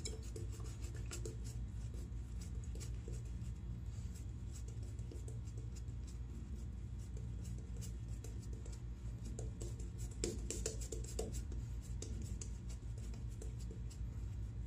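Riva shaving brush working thick lather over two-day stubble: a steady run of soft, scratchy brushing strokes, a little stronger about ten seconds in, over a faint low hum.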